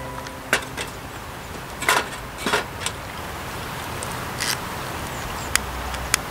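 A handful of short, sharp clicks and knocks at irregular intervals, the loudest pair about two seconds in, over a steady background hiss.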